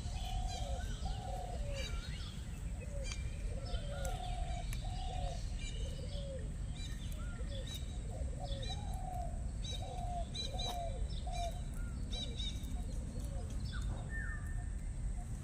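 Birds calling outdoors: many short, repeated calls overlapping one another, with higher chirps among them, over a low steady rumble.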